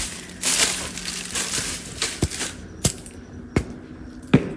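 Footsteps crunching over debris, with a few sharp snaps or cracks along the way.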